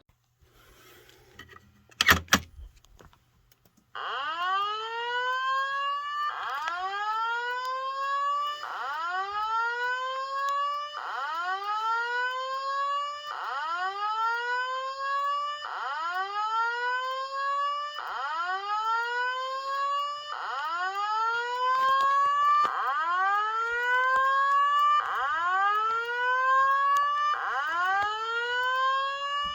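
A sharp click, then about four seconds in a Simplex fire alarm speaker strobe starts sounding the slow whoop evacuation tone. It is a rising sweep repeated about every two and a half seconds, eleven whoops in all.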